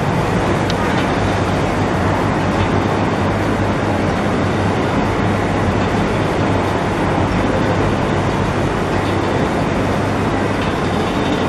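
Roller heat transfer machine running steadily, a constant mechanical noise over a low hum.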